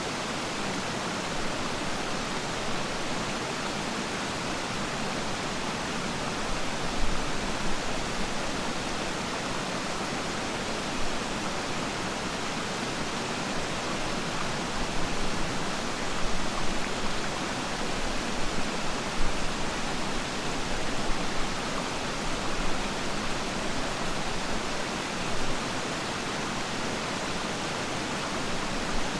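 Waterfall rushing steadily, a dense even roar of falling water with brief louder surges now and then.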